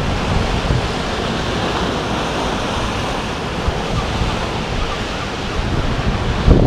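Sea waves breaking and rushing in foam over a shingle beach, a steady surf wash. Wind buffets the microphone in low rumbles at the start and again near the end.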